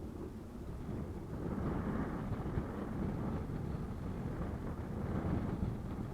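Strong gale wind buffeting the microphone, rumbling and gusting, with a swell about a second and a half in.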